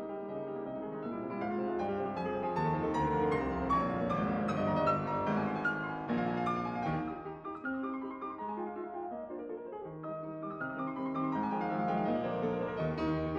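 Background piano music, a flowing run of notes.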